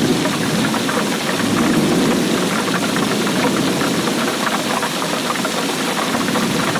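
Steady rainfall, a dense, even patter of many small drop ticks over a low rushing hiss.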